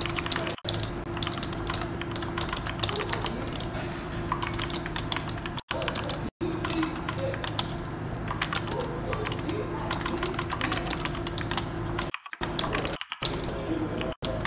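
Typing on a computer keyboard: a steady run of irregular keystrokes over a faint steady hum, cutting out briefly a few times.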